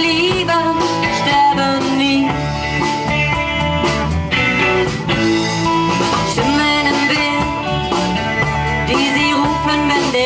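Live band playing, with guitars prominent over a steady low end.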